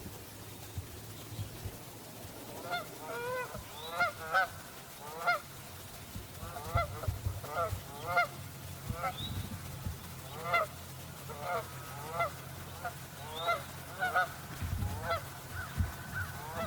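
Geese honking: a long series of short, repeated calls that begins about three seconds in and keeps on irregularly, several calls overlapping at times.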